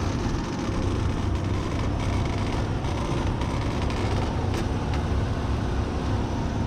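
Car engine idling with its accessory belt drive running and the A/C compressor engaged, giving a steady belt and pulley noise. The mechanic traces the noise to the idler pulley.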